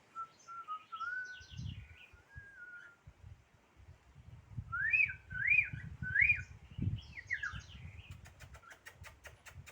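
Caged songbird singing: a wavering whistle, then three rising whistled notes in a row, mixed with short high chirps. A run of quick clicks, about five a second, comes near the end.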